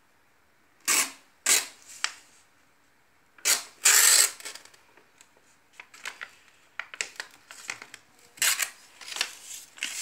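A sheet of colour paper being handled, folded and creased: a few loud rustles, then a run of short crackles.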